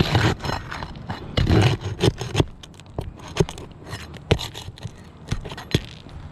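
Old three-tab asphalt roof shingles being pried and pulled loose: scraping and crackling for the first couple of seconds, then a handful of sharp clicks and knocks.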